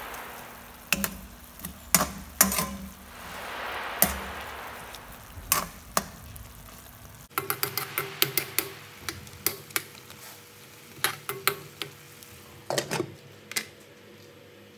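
A spoon knocking and scraping against a metal pan as pieces of chicken are turned in simmering liquid, in a run of sharp clinks, over the soft hiss of the bubbling liquid, which swells up about four seconds in.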